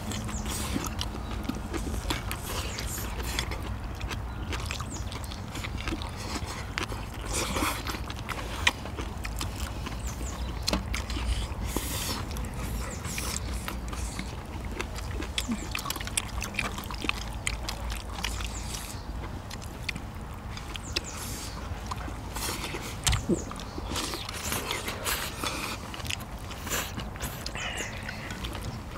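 Several people eating braised spicy seafood: chewing and slurping, with scattered sharp clicks of chopsticks against bowls and shells, over a low steady rumble.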